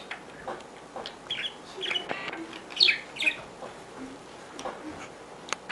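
Pet parrot giving a few short chirping calls, clustered in the middle.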